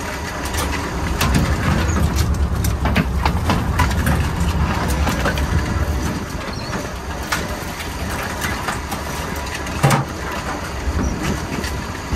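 Crab workboat's engine running steadily underway. Over it come the clattering and clicking of a wire crab pot being handled and crabs being shaken out of it, busiest in the first half, with one sharp knock about ten seconds in.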